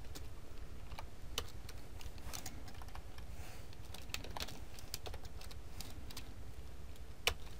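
Typing on a computer keyboard: irregular keystroke clicks, one louder click near the end, over a low steady hum.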